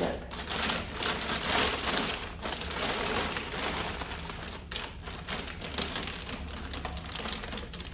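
Packaging being handled as the box of a new printer is opened: a dense run of short scrapes, rustles and small clicks.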